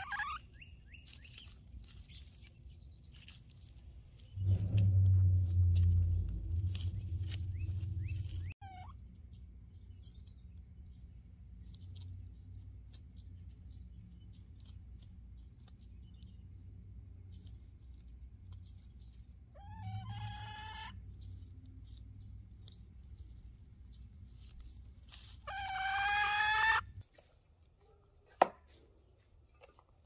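Scattered animal calls: a few drawn-out pitched cries, the loudest near the end. A loud low hum runs for about four seconds early in the stretch, and a single sharp click comes near the end.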